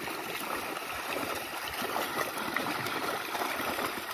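Steady splashing and churning of shallow water from a net crowded with milkfish thrashing at the surface.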